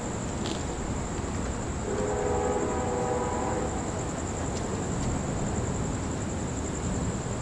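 A distant train horn sounds once for about a second and a half, a few seconds in, as a chord of steady tones. Behind it is a constant low rush of outdoor noise and a high, steady, pulsing insect trill.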